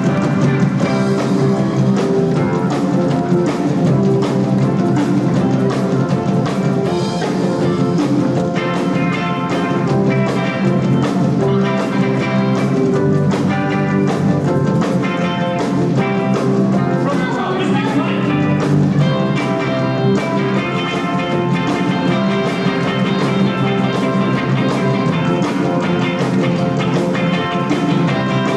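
A live rock and roll band playing steadily, with a drum kit and electric guitar to the fore.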